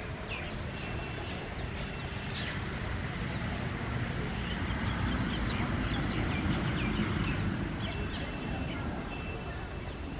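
Outdoor ambience of many birds chirping in short, scattered calls, with a thin steady whistle early on and again near the end. A low rumble swells through the middle and fades away.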